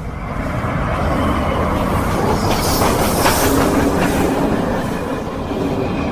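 SNCF 231 K 8 Pacific steam locomotive and its train running past, with the rumble and clatter of wheels on the rails. The sound grows louder over the first second and is loudest a little past the middle.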